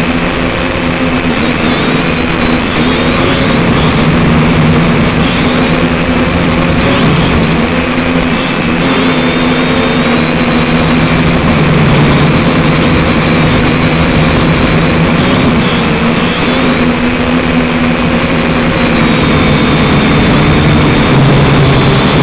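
Syma X5C quadcopter's four small brushed motors and propellers whining steadily, heard close up through the drone's onboard camera. The pitch wavers slightly with throttle corrections and settles a little lower in the last few seconds.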